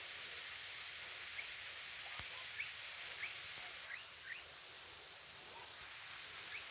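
A bird gives about five short rising chirps through the middle, over a steady hiss.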